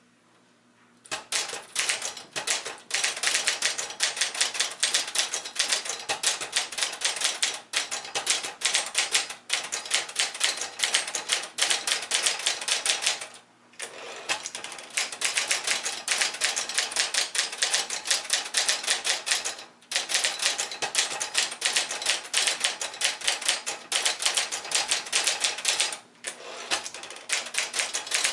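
Brother Echelon 99 typewriter being typed on quickly, a steady run of rapid keystrikes that starts about a second in and breaks off briefly three times.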